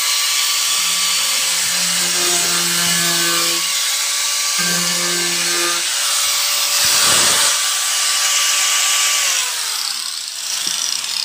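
Angle grinder with an abrasive disc running at speed against a car's steel body panel, grinding off the paint. Its motor winds down about nine and a half seconds in.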